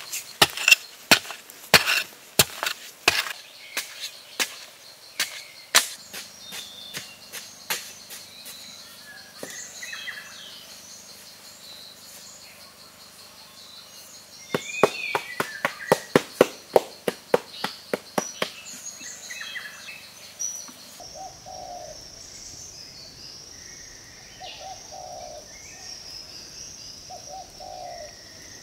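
A wooden digging stick jabbed repeatedly into soil, sharp thuds about two a second at first, then a faster run of strikes midway. Later only insects buzzing steadily and birds calling in short repeated notes.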